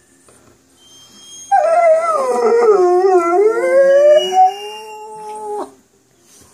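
Shar Pei mix dog howling in answer to a person's singing: one long howl, about four seconds, that starts about a second and a half in, dips in pitch and wavers, then rises and holds before stopping abruptly.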